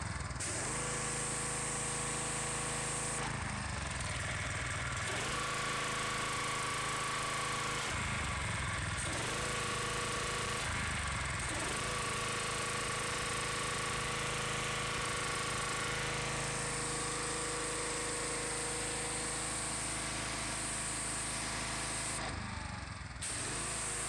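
Briggs & Stratton 875EX 190cc OHV engine of a gas pressure washer running steadily, with the hiss of the water jet. Its pitch dips briefly a few times and glides back up. It is running smoothly and strongly again after its fuel system was cleaned.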